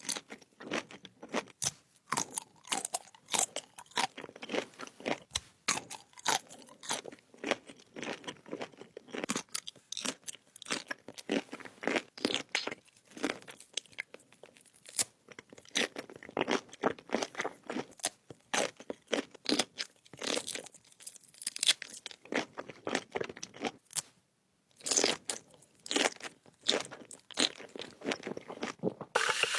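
Close-up crunching and chewing of crisp food, a rapid run of sharp crackly bites and mouth sounds, with a short pause near the end.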